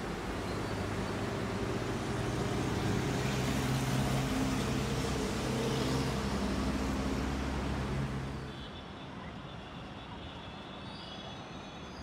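Road traffic noise with a heavy vehicle's engine running, louder through the middle and falling away about eight and a half seconds in, leaving a quieter traffic hum with a faint high squeal near the end.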